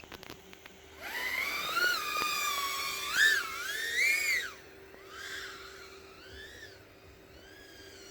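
Brushless motors of a 3-inch FPV quadcopter (1407 3600KV motors spinning four-blade 3-inch props) whining as the throttle changes. The whine rises about a second in and swells and dips several times, then drops back quieter about halfway through with smaller swells.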